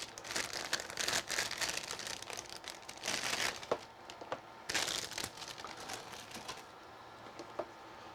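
Plastic packaging crinkling and rustling as it is handled, in bursts, busiest over the first few seconds and thinning to light, scattered rustles near the end.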